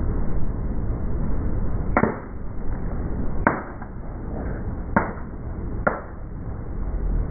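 A car tyre crushing a plastic toy as it rolls slowly over it, with four sharp cracks spread over a few seconds, over the low steady rumble of the car.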